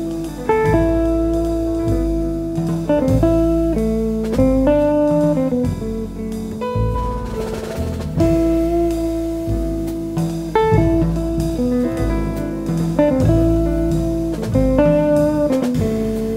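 Instrumental jazz from a small band: a melody of long held notes moving in steps, over a walking low bass line and a drum kit with cymbals.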